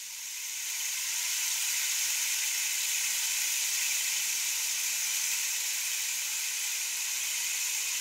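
Steady, even hiss in a percussion recording, swelling in over the first second and then holding level, with a faint low hum beneath it.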